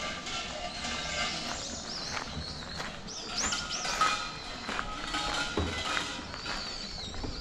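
Background music that fades out in the first second or so. Then birds call in repeated high, sliding chirps and whistles over outdoor ambience, with a few footsteps on stone paving.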